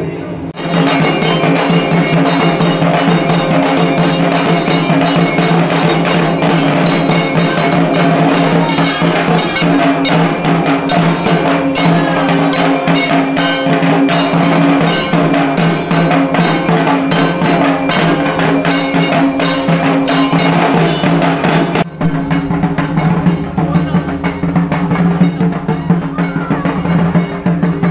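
Dhak drums played in a fast, continuous festive rhythm with a steady metallic ringing over them. The sound changes character about 22 seconds in.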